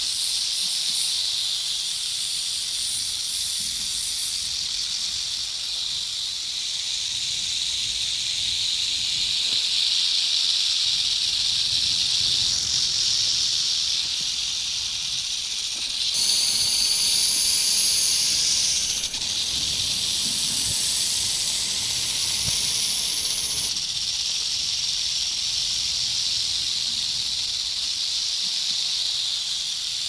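Snake hissing: a continuous high hiss that doesn't let up, with a second, sharper hiss joining in on top from about halfway through and dropping out again a few seconds later.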